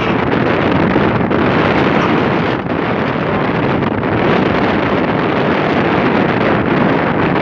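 Strong wind buffeting the microphone in a dense, steady roar, over the running diesel engine of a Komatsu PC200 excavator.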